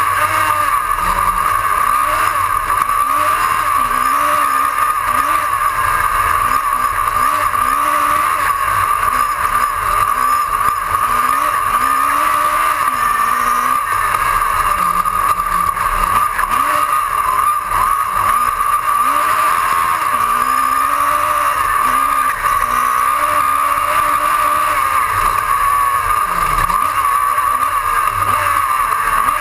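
Autocross race car's engine at racing speed, heard through a bonnet-mounted onboard camera: the revs climb and drop again and again as it accelerates, shifts and brakes for corners on the dirt track.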